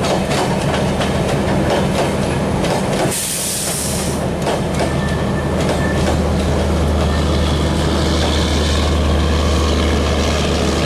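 Bangladesh Railway intercity coaches rolling past close by, wheels clicking over the rail joints. There is a brief hiss about three seconds in, and from about four seconds in a deep steady hum as the train's power car, with its diesel generator, comes alongside.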